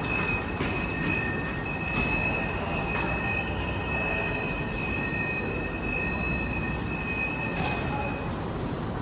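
Subway train running with a steady high-pitched wheel squeal over a low rumble; the squeal stops near the end.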